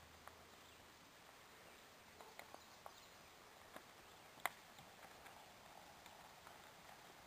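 Near silence: faint outdoor ambience with a few scattered soft clicks, the sharpest about four and a half seconds in.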